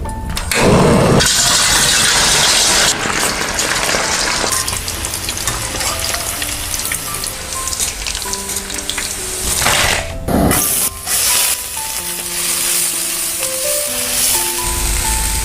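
Food frying in hot oil in a pan, sizzling, with stirring. The sizzle surges loudest from about a second in and again briefly about ten seconds in. Background music plays over it.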